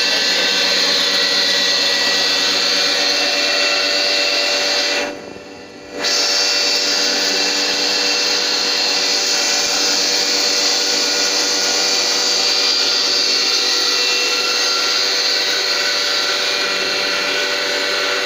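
A combined grain-grinding and hulling mill running steadily under load, giving out flour: a constant whine and hum with an even hiss. The sound drops away sharply for about a second five seconds in, then comes back.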